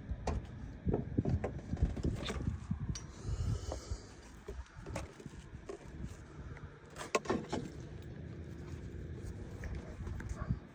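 Scattered knocks and clicks, with a cluster of sharper ones about seven seconds in, over a steady low rumble.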